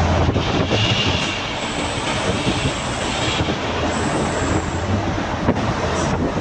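Steady engine drone and tyre and road roar heard inside a moving vehicle's cab in a road tunnel, where the traffic noise echoes around. A thin high whine comes and goes in the middle.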